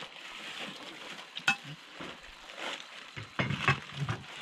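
Food frying with a steady sizzling hiss, and one sharp clink of a utensil about a second and a half in.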